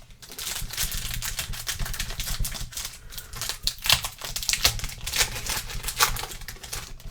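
Trading cards and their pack wrapping being handled: a dense, irregular run of small clicks and crinkles.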